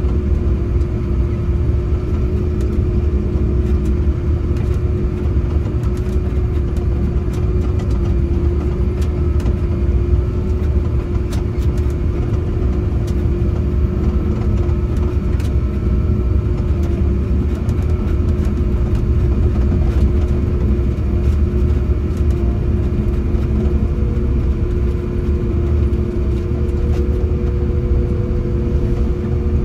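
Prinoth Bison snowcat's diesel engine running steadily as the machine drives and grooms, heard from inside the cab. It makes a deep rumble with a steady whine over it, and a second, higher whine joins near the end.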